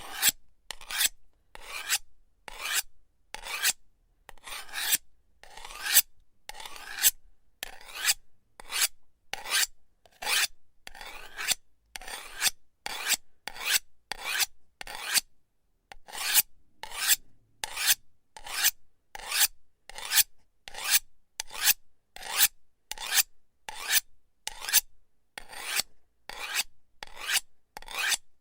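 A knife blade scraping in short, repeated strokes, a little more than one a second, each starting sharply and trailing off, with a brief pause about halfway through.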